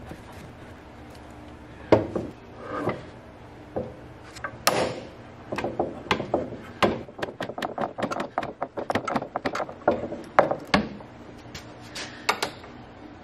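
Irregular knocks and clatter of wood and tools being handled, over a faint steady hum.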